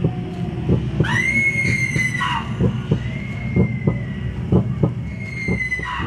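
A high-pitched scream, sweeping up about a second in and held, then drawn out twice more. Underneath run low, irregular thumps and a steady low hum.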